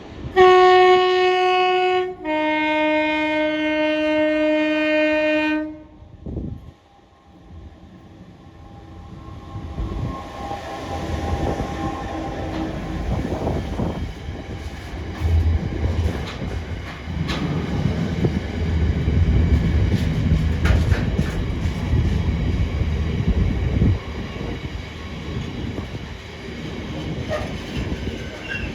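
Class 66 diesel freight locomotive sounding its two-tone horn: a higher note for about two seconds, then a longer lower note. A few seconds later the locomotive approaches and passes, its EMD two-stroke diesel engine running under load, and a train of container wagons follows, rumbling and clattering over the rail joints.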